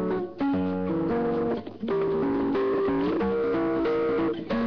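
Cartoon background music: a melody of held notes over a bass line, changing note about every half second, with two brief dips in loudness in the first two seconds.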